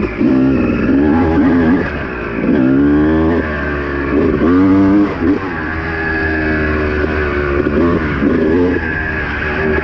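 Honda two-stroke dirt bike engine revving up and falling back again and again as the bike is ridden, its pitch swooping up and down every second or two.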